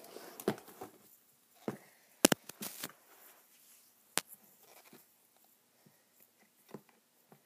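Handling noise: a phone being moved about and set down on a carpeted floor, with scattered knocks, clicks and rustles, the sharpest about two and four seconds in, then a few faint ticks.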